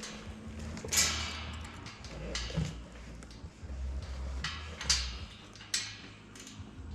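A few sharp knocks and clatters, the loudest about a second in and about five seconds in, over a low rumble.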